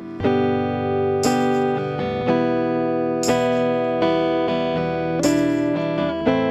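Guitar strumming sustained chords in a steady rhythm, with no vocals: an instrumental backing track. A new chord attack comes about once a second, and a sharper, brighter strum about every two seconds.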